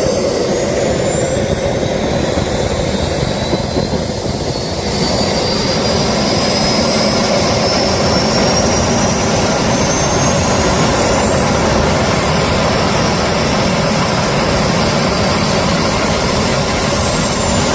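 Jet engine running on a test start, its turbine whine climbing slowly in pitch as it spools up, and the whole sound growing louder about five seconds in. The engine shows crash damage and is being run to see whether it still runs properly.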